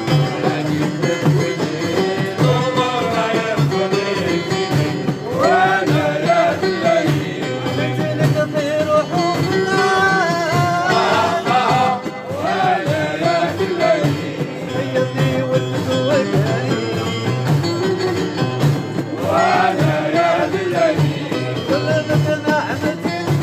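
Live Middle Eastern folk music: a voice singing sliding, ornamented phrases over instrumental accompaniment with a steady beat.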